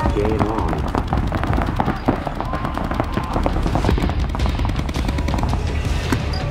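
Paintball markers firing rapid strings of shots, many sharp pops from several guns overlapping.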